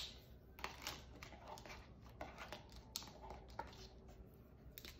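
Pens being handled on a desk: a sharp click as one is set down, then several light clicks and short rustles as another is picked from a pile of pens.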